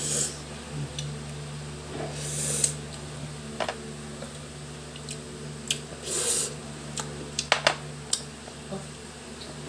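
Table-side eating and handling sounds: a few short hissing noises and scattered light clicks of chopsticks and a drinking glass, over a steady low hum.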